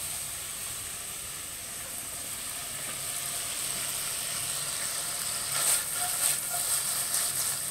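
Chopped bacon sizzling in its rendered grease in a frying pan: a steady hiss, with a few crackling pops in the last couple of seconds.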